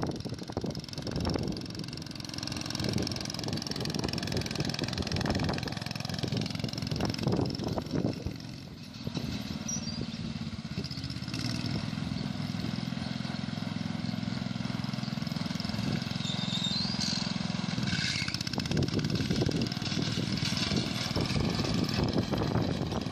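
The engine of a 1964 Jacobsen Chief garden tractor running steadily as the tractor drives along. It dips briefly about eight seconds in, then runs on evenly.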